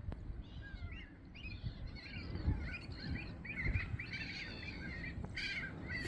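A mixed flock of oystercatchers and gulls calling from the pool's islands: many short, overlapping calls that rise and fall in pitch, growing into a dense chorus about two seconds in.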